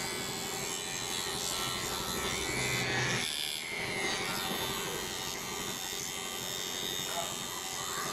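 Cordless electric hair clipper buzzing and rasping as it cuts through long, thick hair, struggling and briefly dipping a little past three seconds in; it is running low on battery.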